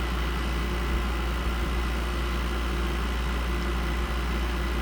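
2007 Frigidaire 5200 BTU room air conditioner running steadily with its compressor on and blowing cold: an even hum with a deep low rumble and a few faint steady tones over fan noise.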